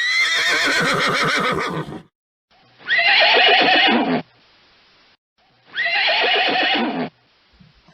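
Horse neighing three times, each whinny lasting about one and a half to two seconds with a short pause between.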